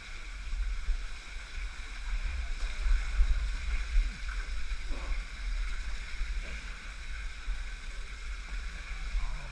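Swimmers splashing and sloshing through a slot-canyon pool while pushing their packs ahead of them. Underneath is a fluctuating low rumble from water and movement against the helmet camera.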